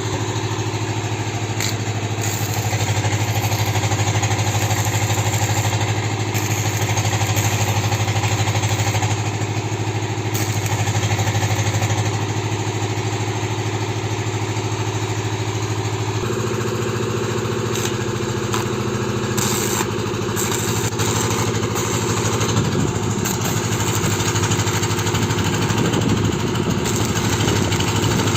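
An engine running steadily at idle, its tone shifting slightly about sixteen seconds in.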